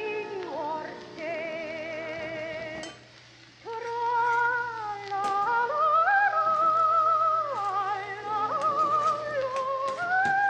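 Background music: an old recording of a song sung with strong vibrato, with a brief quieter dip about three seconds in.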